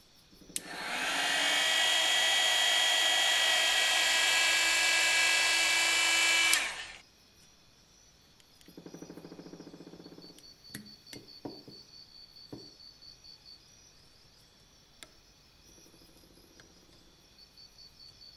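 Small handheld electric rotary tool switched on, spinning up to a steady high whine, running for about six seconds, then switched off and winding down. Afterwards a short low buzz and a few light clicks and scrapes of metal tweezers picking at a rusted metal model.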